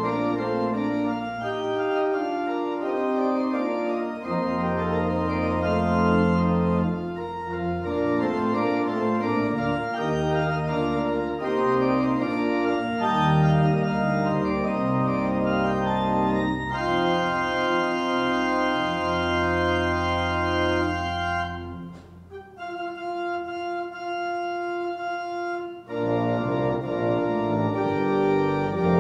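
Organ music: sustained chords changing every second or so over a moving bass line, thinning to a softer passage for a few seconds about three-quarters of the way through before the full sound returns.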